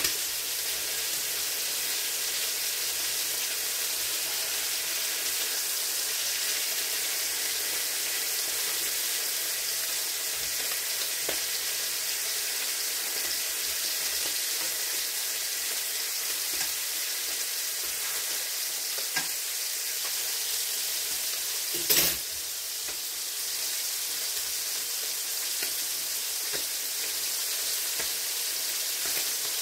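Pieces of meat sizzling steadily as they fry in pans on a stove. A sharp knock sounds once about 22 seconds in.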